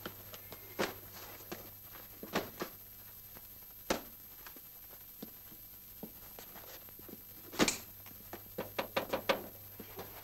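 Footsteps and scattered knocks and thuds of a man moving around a small room, with a sharp knock about four seconds in, a louder thud past halfway, then a quick run of clicks.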